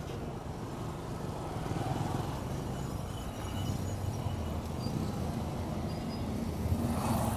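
Road traffic: motor vehicles running and passing in a steady low rumble that swells as they go by, loudest near the end.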